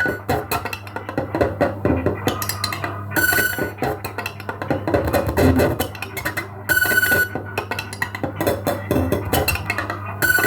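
Instrumental music with a steady rhythm and a phrase that repeats about every three and a half seconds.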